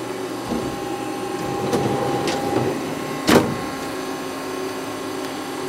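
Steady hum of a powered-up CNC lathe with a hydraulic chuck, not cutting, holding several steady tones. A light click comes just after two seconds, then a single sharp metallic clack with a short ring about three seconds in.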